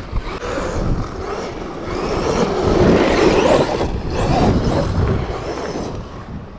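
Arrma Outcast 8S EXB brushless electric RC truck driving hard across dirt and sand, its tyres churning loose ground. The noise builds to a peak about three seconds in, then eases off.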